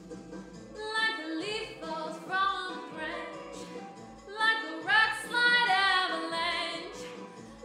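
A woman singing a song with long held notes that slide in pitch, over instrumental accompaniment; her voice comes in about a second in.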